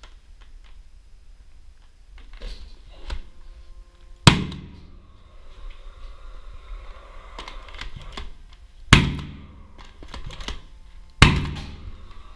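Direct-fastening nail gun firing three nails into the ceiling to fix a mounting profile. The three sharp shots come about 4, 9 and 11 seconds in, each ringing out briefly, with a couple of lighter clicks of tool handling before the first.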